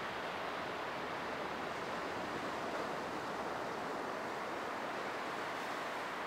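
Small waves washing onto a sandy shore: a steady, even hiss of surf.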